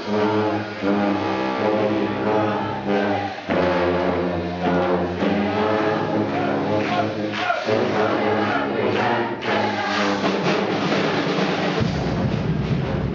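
A sousaphone-led brass band playing live: several sousaphones and other brass hold loud chords together, with short breaks between phrases. In the second half the playing gets busier, and a heavy deep bass comes in near the end.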